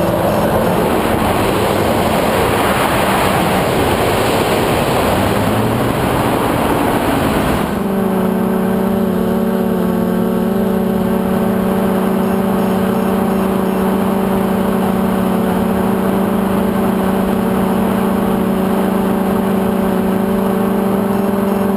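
QAV400 quadcopter's electric motors and propellers whirring in flight, rough and shifting in pitch for the first several seconds, then changing abruptly, about eight seconds in, to a steady, even buzz.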